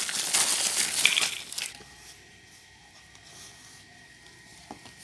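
Clear plastic wrapper crinkling and tearing as it is pulled open, for about a second and a half. After that, only faint room noise with a faint steady high tone.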